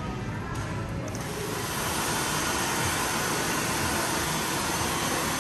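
Handheld hair dryer blowing, a steady, even rush of air that comes up about a second in and holds.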